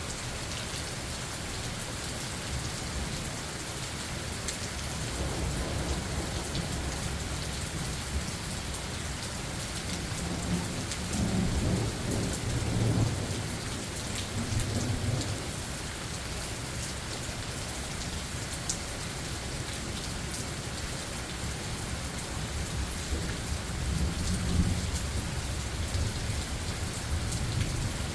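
Steady rain falling in a forest, with distant thunder rolling in low rumbles: a longer roll about halfway through and a shorter one near the end.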